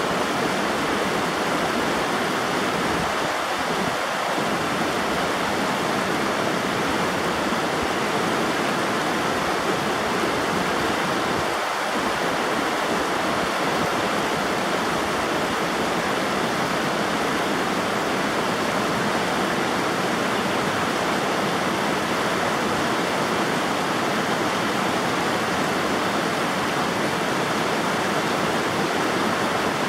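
River water rushing, a steady, even flow of running water.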